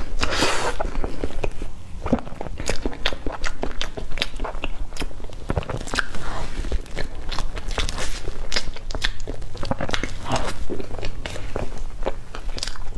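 Close-miked eating of soft cream cake: chewing and lip-smacking with many irregular, sharp wet mouth clicks.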